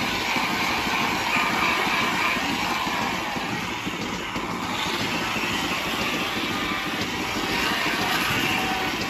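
Milking parlour machinery running steadily: a continuous mechanical drone and hiss from the milking system as clusters are put on the cows.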